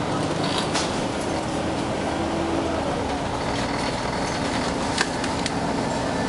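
Bus ride heard from inside the cabin: steady engine and road noise, with a couple of sharp rattles about a second in and again near the end.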